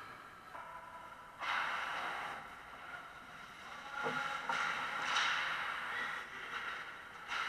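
Ice hockey skates scraping and carving on the ice in bursts as players stop and turn around the goal. A single sharp knock comes about four seconds in.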